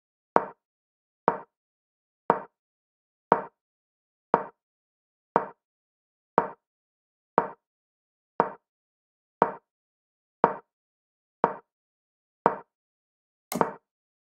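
Chess.com piece-move sound effects, one short click each time the auto-played board makes a move, about once a second. One brighter, different click near the end falls where Black castles, chess.com's castling sound.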